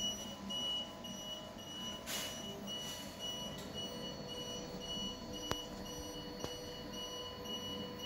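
An electronic buzzer beeps in a steady repeating pattern, the alarm signalling that a door is open, while an electric linear actuator's motor runs, drawing a cabinet door shut. Two short clicks sound around the middle.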